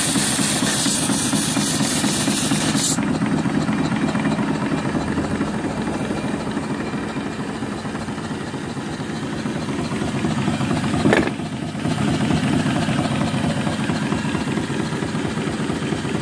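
Small twin-cylinder vertical steam engine running steadily, with the hiss of steam and water blowing from its open cylinder petcocks, which stops sharply about three seconds in. A short thump comes about two-thirds of the way through.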